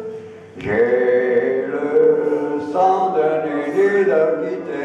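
Live song with clarinet accompaniment: an elderly man sings a melody of held notes into a microphone, and a clarinet plays alongside.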